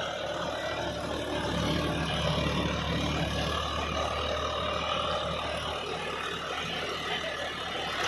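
John Deere 5405 tractor's diesel engine running steadily under load while it drives a Shaktiman rotavator, whose blades churn through soil and banana plant residue. The engine's low hum eases a little about six seconds in.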